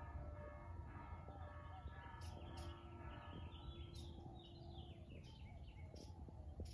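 Church bells' ringing tones lingering and dying out about four seconds in, while a small bird sings a run of quick falling chirps. A low, steady rumble lies underneath.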